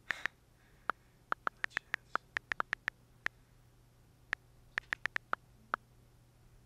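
iPhone touchscreen keyboard clicks as a text message is typed: a quick, irregular run of short ticks, with a pause of about a second in the middle before a second burst of typing.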